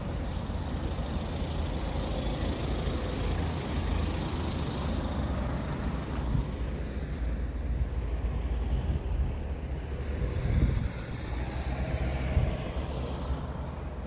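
Motor vehicle running close by: a low engine and road rumble, with its higher road noise fading away about halfway through.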